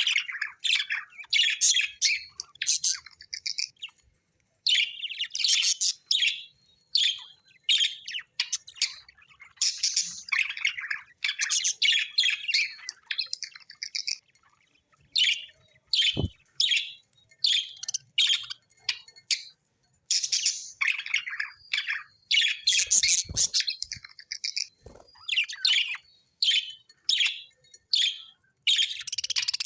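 Budgerigars chirping in rapid, busy bursts of high chatter, broken by short pauses.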